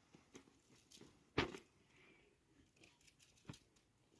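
Sparse light clicks and taps of handling, with one sharper knock about a second and a half in and a smaller one near the end.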